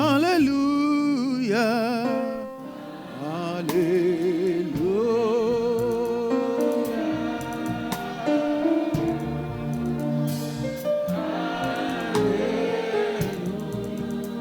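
Gospel worship singing: a voice drawing out 'Hallelujah' twice in long notes with heavy vibrato, over steady held chords.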